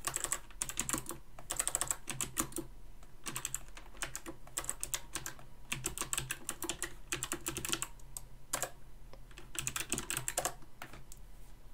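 Typing on a computer keyboard: runs of quick keystrokes with short pauses between them, as a shell command is typed out.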